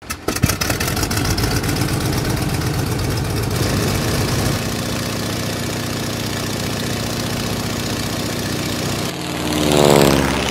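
Electric motor and propeller of a Sebart Cessna S 30-50 E model airplane running with a steady buzz. Near the end it swells louder as its pitch falls, like a close pass.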